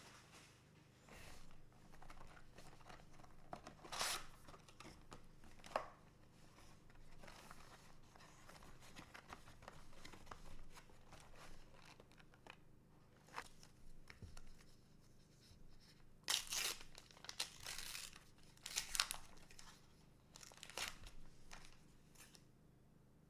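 Plastic trading-card packaging being torn open and crinkled by hand, in a series of short rips and rustles, with the loudest bunched in the second half.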